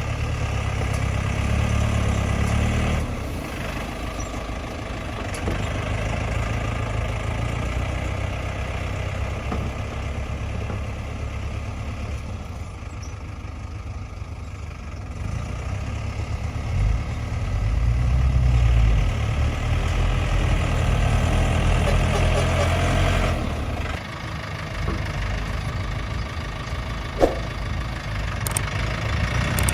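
Tractor engine running under varying load while working like a bulldozer, its rumble rising and falling and heaviest for several seconds past the middle. A single sharp click sounds near the end.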